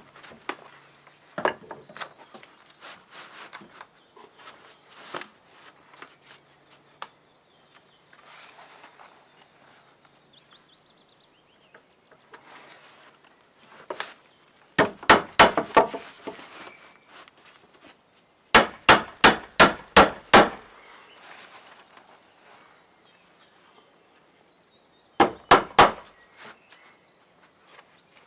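Hammer driving nails into wooden boards, in three quick runs of sharp blows at about three to four a second, with scattered quieter knocks and handling sounds between the runs.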